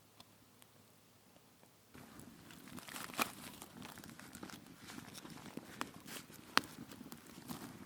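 Campfire starting up: crackling with irregular sharp pops, beginning suddenly about two seconds in, with a few louder snaps later on.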